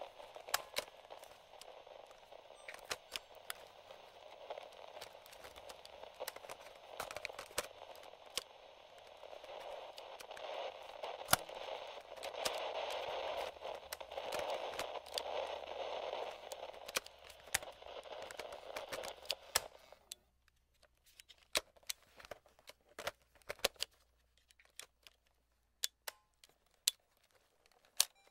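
Static from a vintage FM/AM cassette-recorder radio: a hiss full of crackles, swelling somewhat about halfway. About two-thirds in it cuts off suddenly, leaving only scattered faint clicks and crackles.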